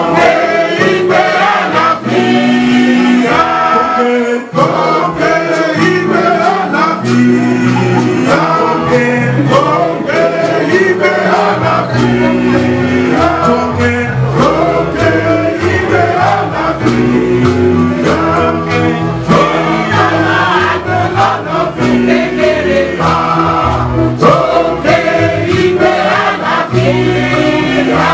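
Church choir singing a Christmas carol in a lively gospel style, with hand-clapping.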